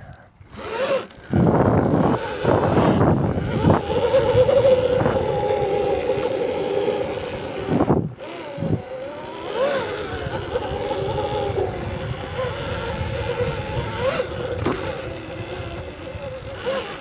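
Electric dirt bike being ridden: the electric motor's steady whine rises and dips a little in pitch with the throttle, over a rough rushing noise that is loudest in the first few seconds. There is a brief sharp break about halfway through.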